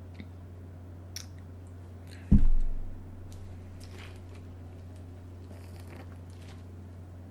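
Close-miked eating sounds: small clicks and mouth noises over a steady low hum, with one heavy low thump about two seconds in.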